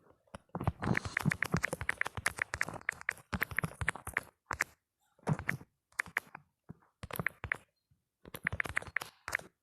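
Smartphone on-screen keyboard click sounds from fast typing, several taps a second in bursts with short pauses between them.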